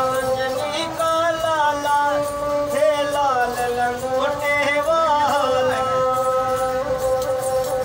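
A bowed folk fiddle playing a devotional bhajan tune: a sliding melody over one steady held drone note.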